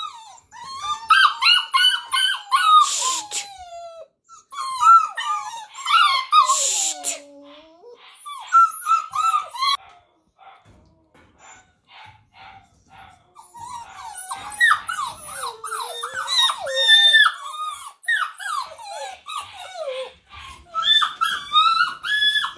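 English Springer Spaniel puppy crying in wavering, high whines and howls, bout after bout, with a pause about ten seconds in and a couple of short sharp yelps: distress at being separated off in a crate for a time out.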